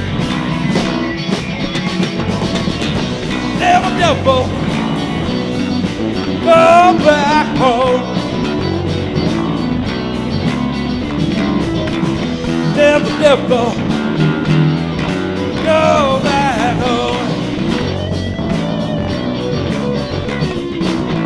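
Live blues-rock band playing an instrumental stretch: an electric guitar plays lead with bent, wavering notes over bass and drums.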